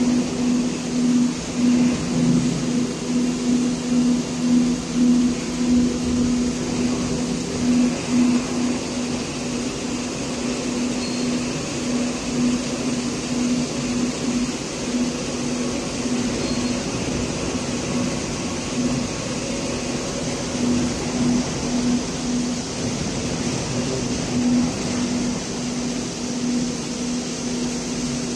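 Steady machinery hum in a factory hall: a low drone that pulses about twice a second, with a hiss above it, swelling and dipping at first, then settling to an even level.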